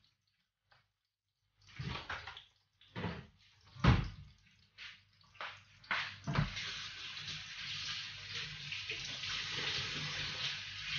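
A few separate knocks and clatters, the loudest about four seconds in, then a kitchen tap running steadily into a stainless-steel sink.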